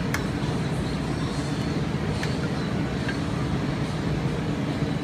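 Steady low rumble of background machinery, with three light clicks of a utensil against a plate as pasta is served.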